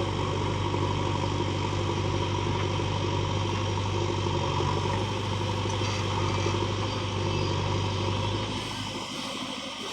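Diesel engine of working farm or earthmoving machinery, running steadily at low revs, dropping somewhat near the end.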